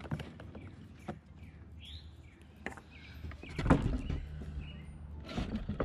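Scattered clicks and knocks from handling the edger's fuel cap and a can of mixed fuel during refuelling, the loudest clatter a little before four seconds in. A bird chirps once about two seconds in.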